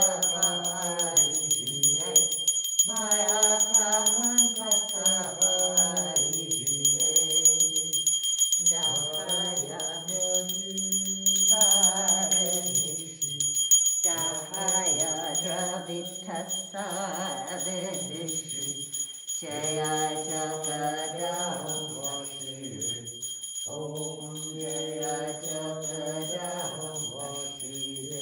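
A group of voices singing a devotional hymn in long phrases with short pauses between them, over a small bell rung rapidly and continuously.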